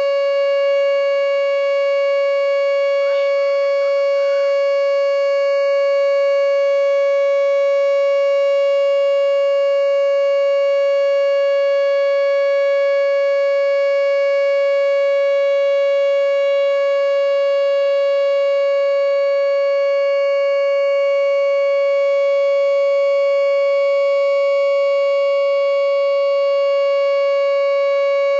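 Whelen WPS 2910 electronic outdoor warning siren sounding the full alert signal of a siren test: one loud, steady tone that holds its pitch without rising or falling.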